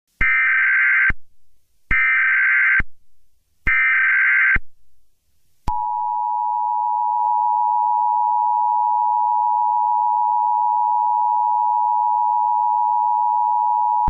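Emergency Alert System alert tones: three short screeching bursts of SAME header data, each just under a second long, then about six seconds in the steady, harsh two-tone EAS attention signal. The sequence marks the start of an emergency alert broadcast.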